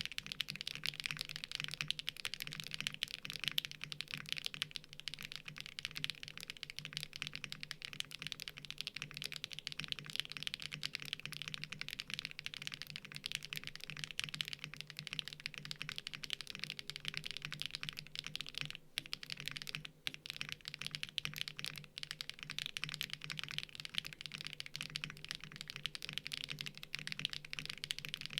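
Fast, continuous typing on a Mode Sonnet mechanical keyboard with stock HMX Xinhai switches on a POM plate, giving a poppy, mid-pitched keystroke sound. The keystrokes come in a dense stream with two short pauses a little past the middle.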